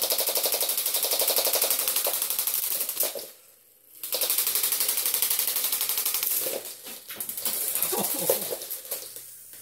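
Spinning weapons and motors of motorised Lego combat robots making a fast, even plastic clatter. It breaks off briefly about three seconds in, and there is a sharp hit about eight seconds in as the robots collide.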